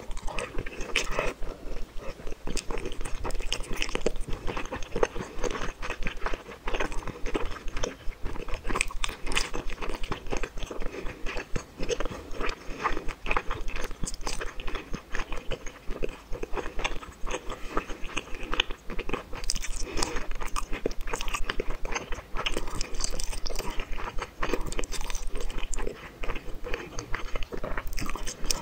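Close-miked eating: steady biting and chewing of spicy tteokbokki rice cakes and fish balls, a dense run of short, irregular mouth clicks and smacks.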